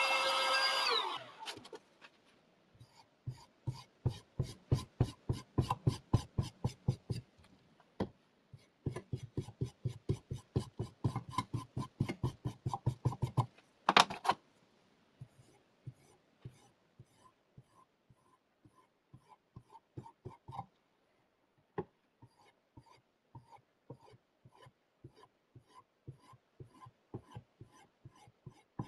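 A small electric air blower whining, then spinning down about a second in. Then a sharpening stone rubbed against steel in quick, even strokes, about four a second. A sharp click comes near the middle, and lighter, sparser strokes follow.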